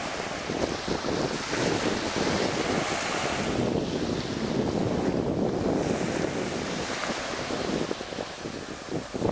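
Small sea waves breaking and washing up a fine-sand beach, swelling twice as the wash comes in, with wind buffeting the microphone.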